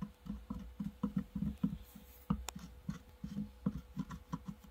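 Hot tip of a plastic welding iron dabbing and scraping on a plastic armrest while melting filler into a hole: a run of short, irregular soft taps, several a second, with a couple of sharper clicks.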